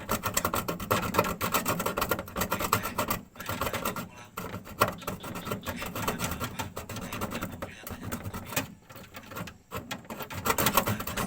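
Rapid, uneven scratching and rubbing strokes of hand work, pausing briefly a few times.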